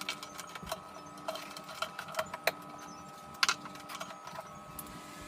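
Small household items being set down and moved about on furniture: scattered light clicks and knocks, the sharpest about three and a half seconds in, over a faint steady hum.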